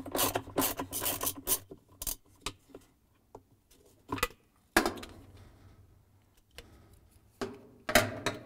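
Socket wrench ratchet clicking rapidly for about the first two seconds as the agitator bolt is spun out on a long extension, then scattered knocks and scrapes of the tool and plastic agitator being handled, with a short clatter near the end as the agitator is lifted out.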